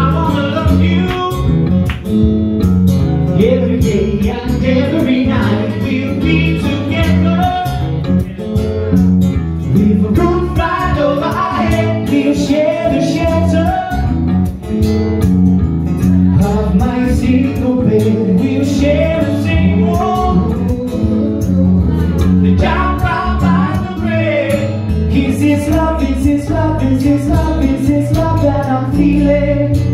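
Live blues band playing: acoustic guitar and bass guitar, with a harmonica played cupped against a handheld microphone carrying the melody.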